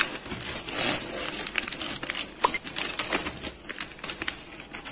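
Plastic shrink-wrap on a multipack of soft-drink bottles crinkling and tearing as hands pull it open, with many short sharp crackles and a louder rustle about a second in.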